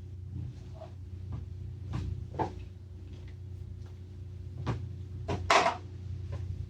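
Scattered light clicks and taps from small engine parts and bolts being handled, the loudest a sharp knock about five and a half seconds in, over a steady low hum.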